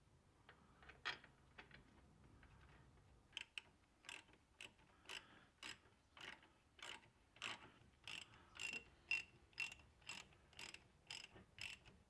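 Hand ratchet with a socket on an extension clicking in short back-and-forth strokes, about two clicks a second. It is running in the bolts that hold the front wheel hub bearing to a Jeep Wrangler TJ's steering knuckle. The clicks start a few seconds in.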